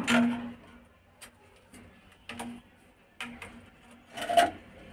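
Scattered clicks and light knocks of a steel tape measure and white PVC pipe fittings being handled on a concrete floor during measuring, with a louder clatter about four seconds in.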